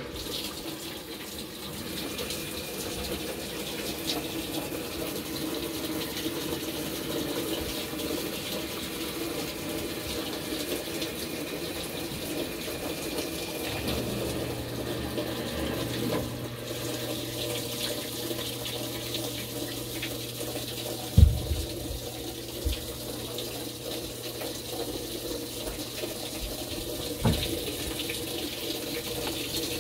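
Washing machine running its clean washer cycle, with water rushing steadily into the drum. About halfway through a low hum starts beneath the water, and two thumps come later on.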